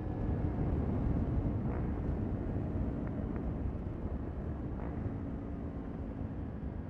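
Kawasaki Ninja 400's parallel-twin engine running through a Yoshimura aftermarket exhaust on the move, the exhaust note easing off gradually as the bike slows.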